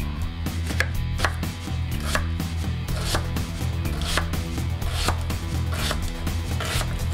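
Chef's knife chopping an onion into chunks and then slicing a thick large green onion on a wooden cutting board, a stroke about every second. The first cuts are sharp knocks of the blade on the board; from about three seconds in the strokes are longer slicing cuts through the green onion.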